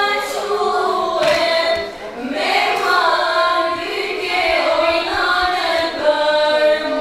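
A group of women singing a slow henna-night (kanagjegj) song together, unaccompanied, with long drawn-out wavering lines.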